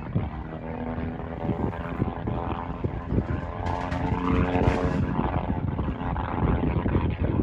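Propeller engine of a vintage World War One-type aircraft running rough overhead with an uneven beat, which an onlooker takes for a condenser problem or ports shutting.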